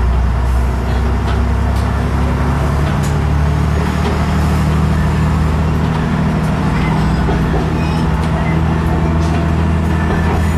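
KiHa 110 series diesel railcar engine running under power with a steady low drone as the train pulls out of a station.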